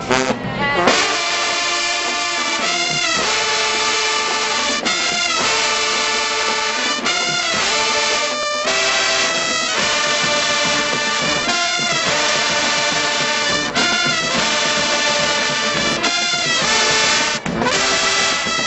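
High school marching band's brass section, trombones and trumpets, playing loud held chords that change every second or two.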